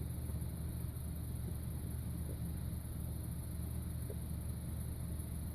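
Steady low hum with an even hiss over it: background room noise, with no distinct sound standing out.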